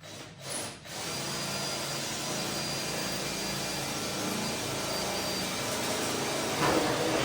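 Power tool running: a short burst about half a second in, then a steady run of about six seconds that gets louder just before it stops.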